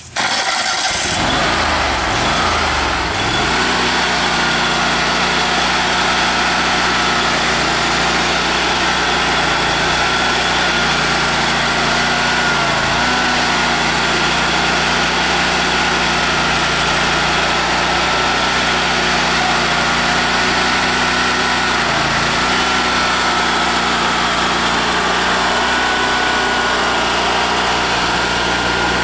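Kohler 27 hp Command Pro V-twin gas engine on a Carlton SP4012 stump grinder starting up, rising in speed over the first few seconds, then running steadily. Its pitch dips briefly twice, about halfway through and again later.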